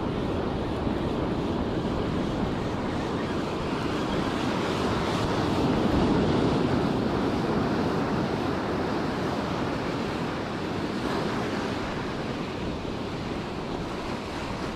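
Ocean surf breaking and washing up the beach, swelling loudest about six seconds in, with wind blowing across the microphone.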